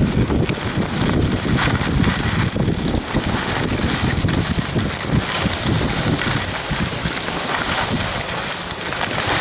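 Wind buffeting the microphone of a skier's camera during a fast downhill run, a low rumbling gust noise, over a steady hiss of skis sliding on packed snow.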